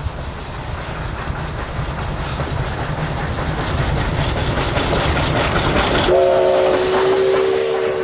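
SO17 steam locomotive running past, its wheels rumbling and clicking over the rail joints. About six seconds in, its multi-tone whistle sounds as one chord for about two and a half seconds.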